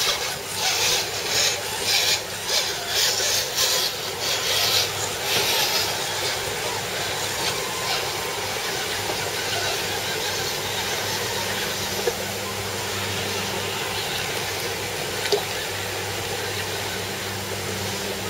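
Radio-controlled scale trucks driving through shallow creek water, with splashing and the whir of their small electric motors. A quick run of rushing, splashy bursts for the first several seconds gives way to a steadier hiss with a low hum.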